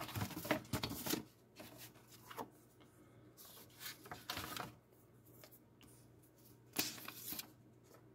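Faint rustling and shuffling of paper and cardboard as a decal sheet and instruction sheet are handled and lifted out of a plastic model kit's box, in several short spells with pauses between.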